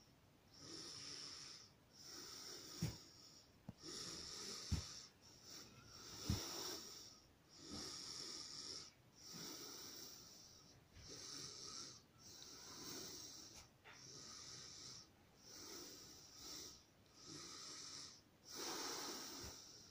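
A person breathing close to the microphone: steady, regular breaths about every second and a half. A few light knocks come in the first several seconds.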